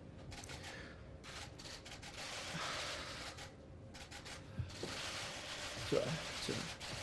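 A man choking back tears: a few short, strained gasps and sobs with a rising pitch in the second half, over room noise and a scatter of sharp clicks.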